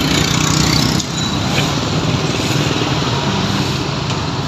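An engine running close by over a steady wash of street and market noise. It is loudest at first and drops off sharply about a second in, leaving a lower engine hum under the background noise.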